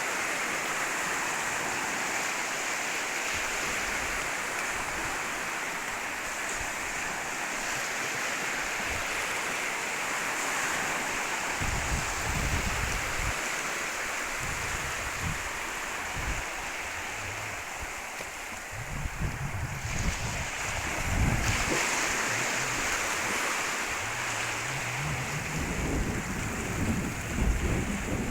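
Sea waves washing onto a beach, a steady wash of surf. From about the middle on, gusts of wind buffet the microphone with low, uneven rumbles.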